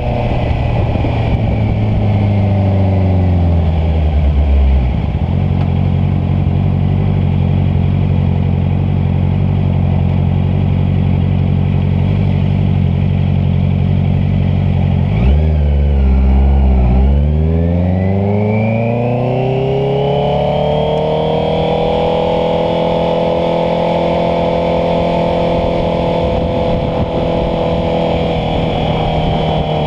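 Honda CBR650F motorcycle's inline-four engine slowing down over the first few seconds, then running steadily at low revs. About halfway through it revs up, rising in pitch for several seconds as the bike accelerates, then holds steady at higher revs.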